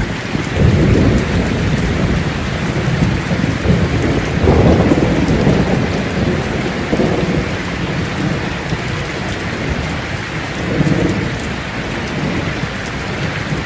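Steady heavy rain with rolling thunder. Low rumbles swell up three times and die away.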